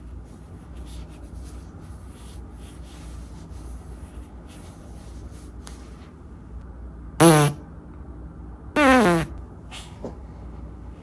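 Two farts about a second and a half apart, each a buzzy note that drops in pitch; the second is longer than the first.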